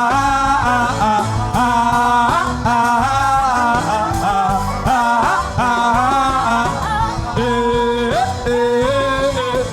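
Wordless sung chanting, a melodic voice gliding between held notes, over continuous worship-music backing with a steady bass.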